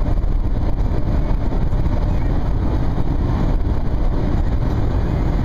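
Steady road and wind rumble inside a car moving at highway speed.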